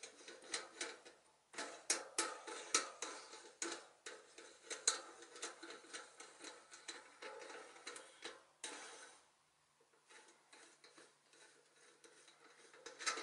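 Metal clicking and clinking of a blue bearing press being unscrewed from a bicycle hub: the T-handle spun back along its threaded rod, dense rapid ticks for about nine seconds, then only a few faint clicks as the press is lifted off.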